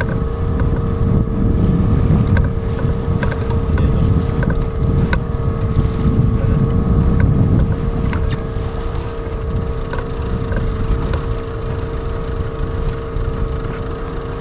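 Small outboard motor running steadily as it pushes an inflatable boat at trolling speed, with a constant hum. Wind buffets the microphone in gusts, and a few faint clicks sound now and then.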